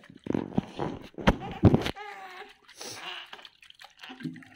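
Thumps and rustling of cloth handled close to the microphone, loudest a little over a second in, followed by a short high-pitched voice sound with a wavering pitch.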